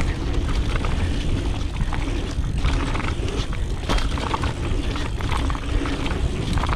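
Mountain bike riding fast down a dirt flow trail, heard from a GoPro Hero 8 action camera: steady wind rush and tyre rumble, with scattered sharp knocks and rattles from the bike over the ground.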